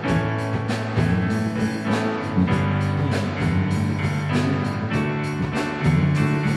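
Live worship band playing an instrumental passage: drum kit keeping a steady beat under keyboard chords and a moving bass line.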